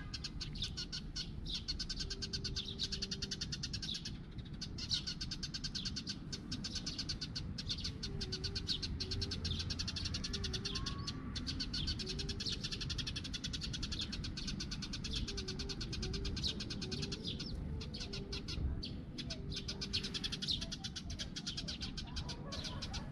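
Tabby cat making soft, short, low calls several times while being stroked, over steady high-pitched chirping in the background.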